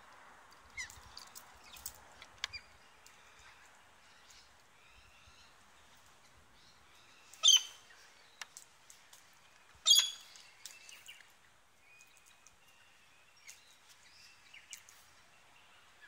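Faint outdoor background with scattered short bird chirps. Two brief, loud, sharp sounds stand out about two and a half seconds apart near the middle.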